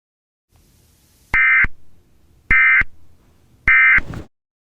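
Emergency Alert System end-of-message data tones: three short, buzzing digital bursts of about a third of a second each, a little over a second apart, over faint static.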